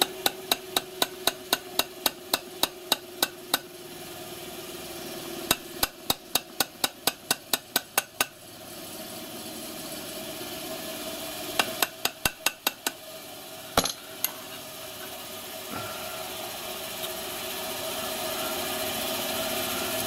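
Small ball-pein hammer tapping a steel roll pin into its hole in a miniature locomotive's pony-truck control bar, in quick runs of light blows, about five a second. Two long runs, a short third run, then a single knock about halfway through.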